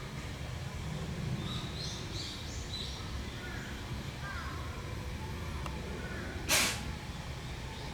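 A puma sneezing once: a single short, sharp burst near the end, over small birds chirping in the background.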